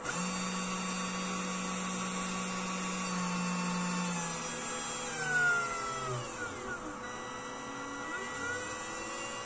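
Arduino GRBL-controlled desktop CNC router at work: the spindle motor whines steadily while the stepper motors drive the axes. Their tones step and glide up and down in pitch as the head changes speed and direction.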